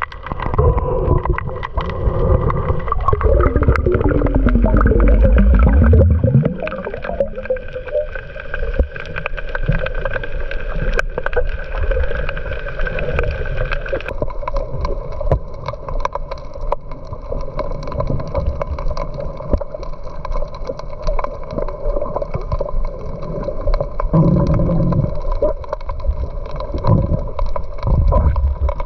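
A small boat's motor running with water gurgling against the hull. About four to six seconds in, the motor's pitch falls and its heavy low rumble drops away, then it keeps running more quietly.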